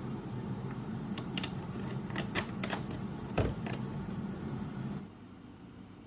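A handful of light clicks and taps over a steady low hum, the loudest a sharper knock in the middle; the hum drops away suddenly about five seconds in.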